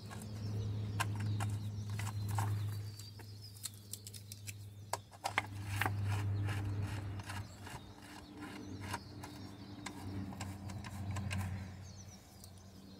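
Ratchet wrench clicking in short irregular runs as it tightens the nut holding a DE pool filter's grid assembly together. A steady low hum runs underneath.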